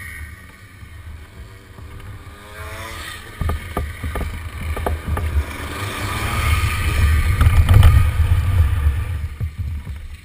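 Two racing karts' engines approach and pass close by, growing steadily louder to a peak about eight seconds in, then dropping away sharply. Heavy low rumble and wind buffeting on the microphone run under them.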